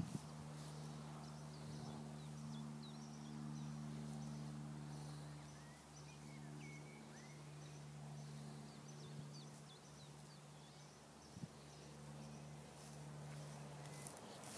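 Faint outdoor ambience: a steady low hum throughout, with scattered small birds chirping faintly over it.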